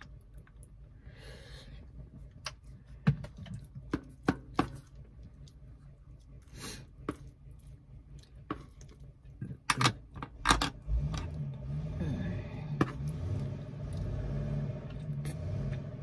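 Eating sounds: a spoon clinking and scraping on a plastic plate, with chewing and mouth noises, as sharp clicks scattered through. A low steady rumble comes up about eleven seconds in.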